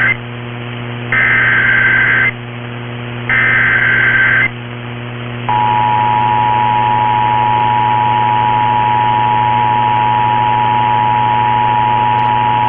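Emergency Alert System tones: two of the three SAME header data bursts, each about a second of warbling, chirping digital noise, then from about five seconds in the steady dual-tone EAS attention signal. A steady low hum and hiss lie under it all.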